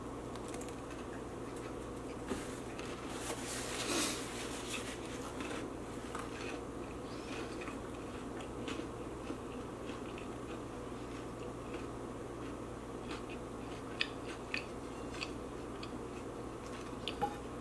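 Close-up chewing of a large, dry mouthful of bagel with cream cheese and hot Cheetos. Scattered small crunches and mouth clicks sound over a steady low hum, busiest a few seconds in and again near the end.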